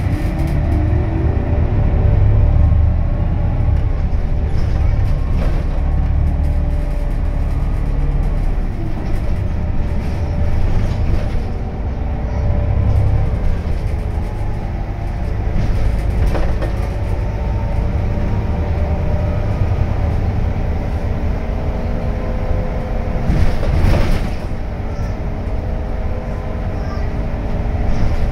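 Inside an Irisbus Crealis city bus under way: the engine and drivetrain run with a steady low rumble, their whine rising in pitch as the bus accelerates near the start. A couple of sharp knocks come from the cabin over bumps, about two-thirds of the way through and again near the end.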